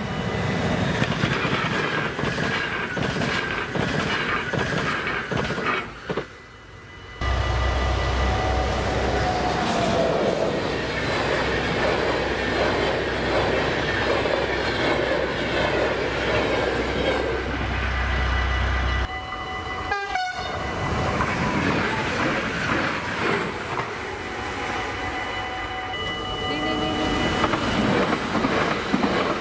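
Electronic warning bells of Dutch level crossings ringing steadily while passenger trains run over the crossing, their wheels clattering and rumbling on the rails. The sound changes abruptly twice as it jumps from one crossing to the next.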